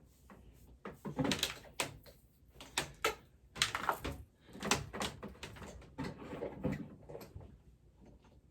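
Household objects being handled and put down: a string of knocks, clicks and rustles, like rummaging through a drawer or cupboard.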